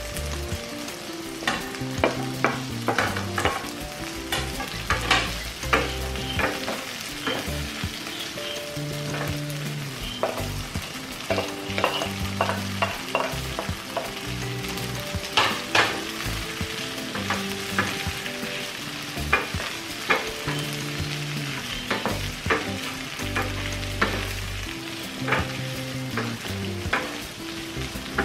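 Crumbled tofu and diced vegetables sizzling in a nonstick frying pan while a spatula stirs and scrapes, giving a steady frying hiss broken by frequent sharp clicks and taps of the spatula against the pan.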